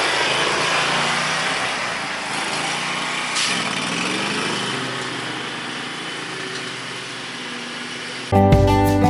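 Exmark zero-turn mower's Predator 670 V-twin engine running, growing gradually fainter, its pitch dipping and recovering about three and a half seconds in. Background music cuts in near the end.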